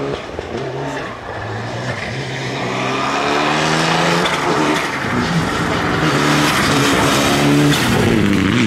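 Mitsubishi Lancer Evolution rally car's turbocharged four-cylinder engine accelerating hard, its pitch climbing and dropping several times as it shifts up through the gears. It grows steadily louder as the car comes close and passes.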